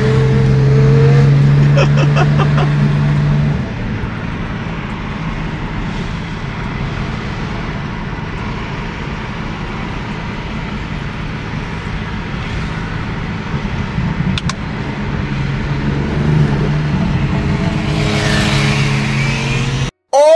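Car engine and exhaust droning steadily while driving. It is louder for the first three or four seconds, then settles lower, and its pitch rises near the end as the car accelerates.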